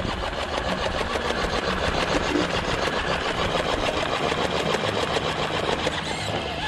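Scale RC rock crawler's electric motor and geared drivetrain whirring steadily as it creeps up a rock face under load, with a fast, even rattle.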